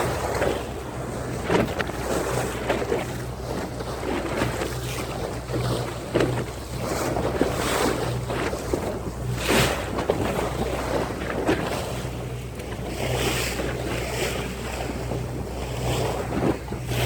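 Small leisure boat under way at sea: a steady low engine drone under rushing water and wind buffeting the microphone, with a louder splashing swell about nine and a half seconds in.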